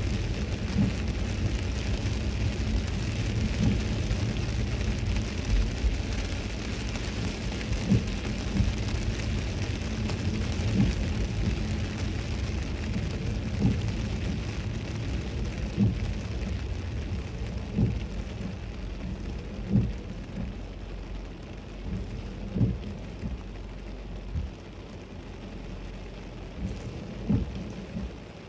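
Heavy rain on a moving car with tyres hissing on the flooded road, heard from inside the car, with a low thump every two to three seconds. The noise eases over the last few seconds as the car slows.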